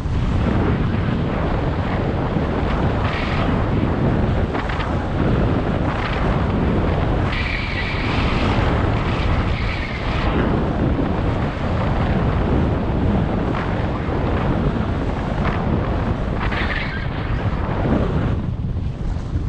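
Wind buffeting the microphone while skiing downhill, with the skis hissing and scraping over groomed snow. The scraping grows louder for a few seconds about seven seconds in and again briefly near the end.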